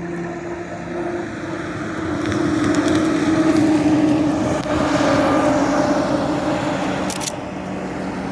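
Pilatus PC-21 turboprop trainer flying past, its propeller and engine drone growing loudest in the middle and dropping slightly in pitch as it goes by. A short burst of camera shutter clicks near the end.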